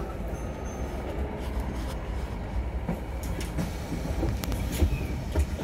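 Heard from inside a double-decker bus: the engine runs with a steady low rumble, and the body and fittings give a few short rattles and knocks.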